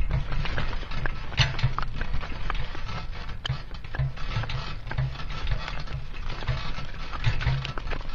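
Pony-drawn exercise cart rolling along a rough dirt lane, heard from a camera strapped to one of the cart's shafts: a steady low rumble with many clicks and knocks as the shaft and wheels rattle, and the pony's hoofbeats as repeated dull thumps.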